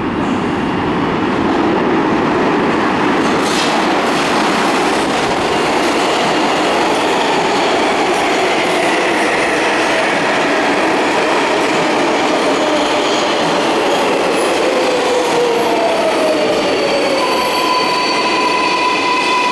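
R142A subway train pulling into the station, its wheels and motors running loudly with a whine that falls in pitch as it slows. A high, steady squeal sets in near the end.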